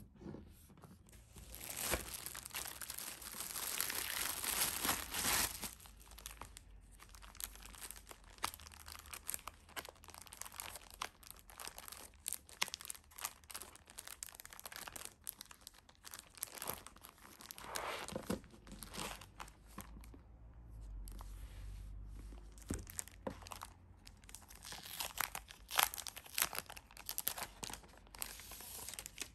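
Crinkly packaging of a pack of decorative craft paper being torn open and crumpled, loudest a couple of seconds in. Then scattered rustles and small clicks as the paper is handled, with another busy stretch of crinkling near the end.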